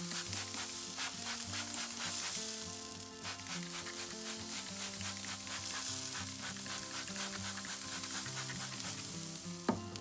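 Pig head halves sizzling and crackling on a hot kamado grill, over background music. A single sharp click near the end.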